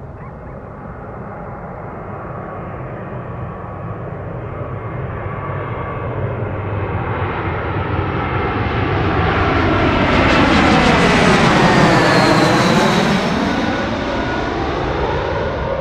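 Jet airliner on landing approach passing low overhead: engine noise swells steadily, peaks about twelve seconds in with a fan whine that drops in pitch as it goes over, then starts to fade.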